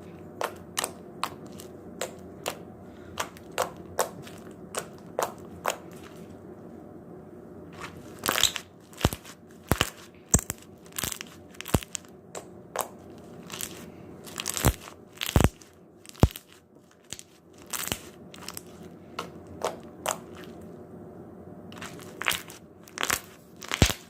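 Slime being squished and played with, making many sharp, irregular clicks and pops. They are sparse at first and come thicker and louder from about a third of the way in.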